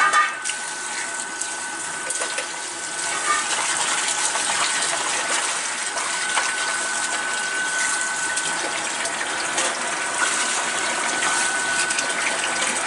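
Kitchen tap running steadily into a plastic basin of water, splashing as hands rub pork spareribs under the stream to rinse them.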